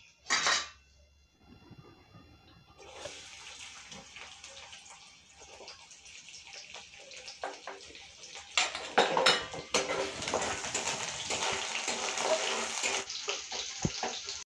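Cooking oil sizzling in a steel kadai on a gas stove, growing louder; about eight and a half seconds in, chopped ingredients tipped into the hot oil make it fry harder, with a few clinks of a steel bowl and spatula against the pan. A short burst of noise comes near the start.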